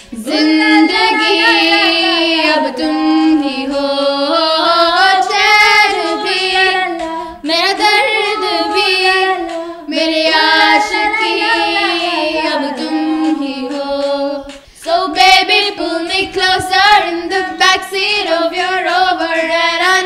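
A high singing voice vocalising without words, holding and sliding through long melodic phrases with a few brief pauses; the phrases turn quicker and choppier about three quarters of the way through.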